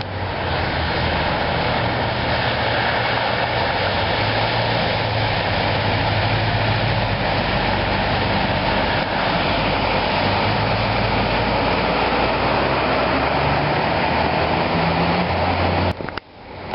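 Floodwater rushing past in a steady, loud roar of moving water, cut off abruptly near the end.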